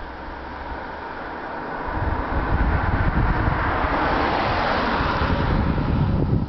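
Wind buffeting the microphone, setting in about two seconds in, with a car passing on the road: its tyre and engine noise swells about halfway through and fades as it drives away.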